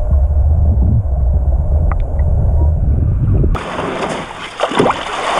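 Muffled underwater rumble of moving seawater heard by a camera held below the surface. About three and a half seconds in it cuts off suddenly and gives way to a bright open-air hiss with a few brief crackles.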